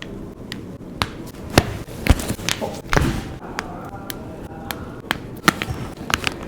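A series of short, sharp taps and thuds, about a dozen at irregular spacing, roughly two a second; the loudest come about one and a half and two seconds in.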